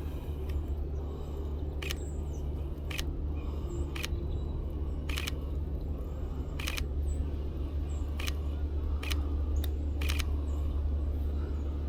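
Sony a7R V shutter firing single frames at irregular intervals, about eight sharp clicks, some a second or more apart and a few in quick succession near the end, over a steady low rumble.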